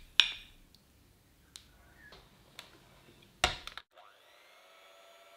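Wooden spoon stirring in a ceramic ramekin, clicking sharply against the bowl a few times, loudest just after the start and again about three and a half seconds in. After that an electric hand mixer starts faintly in a glass bowl with a steady whine that rises slightly as it spins up.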